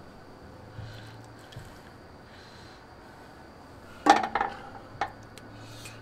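Onion soup being ladled into a ceramic baking dish: faint sloshing and dripping of liquid, then a quick run of sharp clinks from the ladle against the dishes about four seconds in, and a single clink about a second later.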